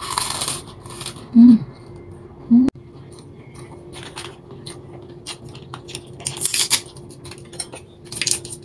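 A crunchy bite into buttered toast with jam, followed by two short hummed "mm" sounds through a full mouth. Then chewing, with a plastic butter packet crinkling and a plastic spreader clicking as the packet is opened.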